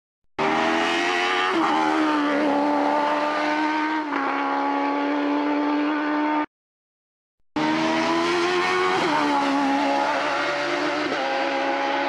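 Single-seater hillclimb race car's engine at high revs, accelerating hard with quick upshifts where the pitch drops, heard in two passes that each cut off suddenly.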